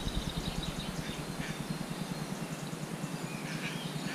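Quiet lakeside ambience with faint bird chirps in the distance, over a low steady rumble.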